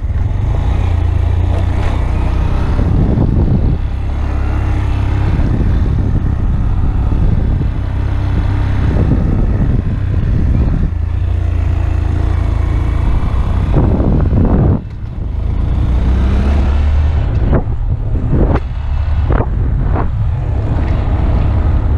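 Honda Grom's 125 cc single-cylinder engine running while riding, mixed with wind rumble on the camera's built-in microphone. The sound drops briefly about fifteen seconds in.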